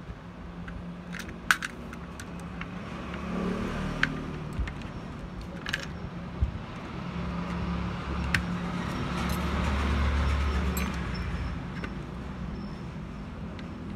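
Low engine rumble of passing road traffic, swelling and fading about two-thirds of the way through, with scattered light metallic clicks and taps.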